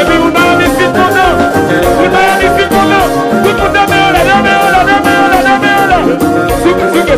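Live Haitian konpa band music: a melodic lead line, brass-like by its tags, over a steady dance beat.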